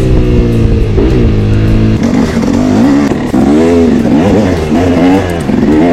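Motorcycle engine revving, its pitch rising and falling again and again, with the rises and falls becoming quicker and sharper about two seconds in.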